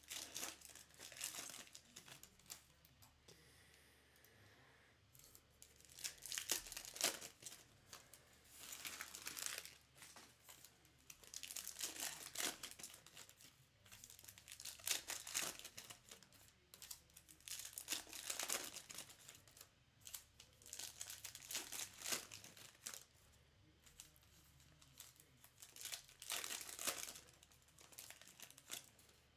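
Foil trading-card packs being torn open and the wrappers crinkled, in repeated bursts every few seconds.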